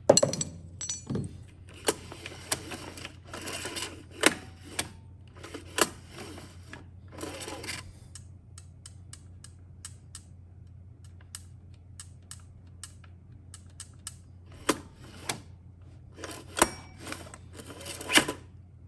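Scattered metallic clicks and clinks of hand tools and small engine parts being handled at the cylinder head of a Honda TRX90 engine during a valve check, a few of them ringing briefly. A steady low hum runs underneath.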